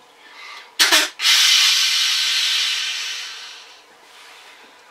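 Snort-wheeze blown on an original Primos Buck Roar deer call, imitating a whitetail buck's snort-wheeze. A sharp puff of air about a second in is followed by a long hissing wheeze that fades away over about two and a half seconds.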